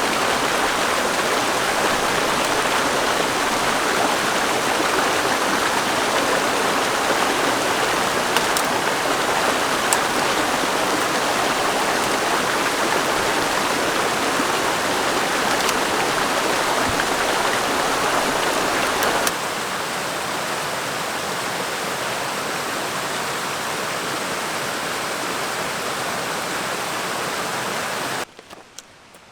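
Steady rushing water, a loud even wash. It steps down to a quieter level about two-thirds of the way through and falls away almost entirely near the end, leaving faint rustling.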